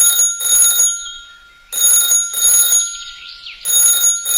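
Telephone ringing in a double-ring pattern: two short bell-like rings, a pause, then the pair again, repeating about every two seconds.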